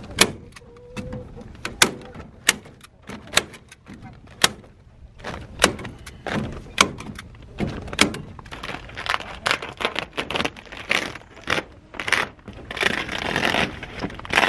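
Hand staple gun firing staples through plastic sheeting into a wooden frame: about ten sharp snaps, roughly a second apart at first, with the plastic crinkling and rustling as it is pulled taut between shots, more of it near the end.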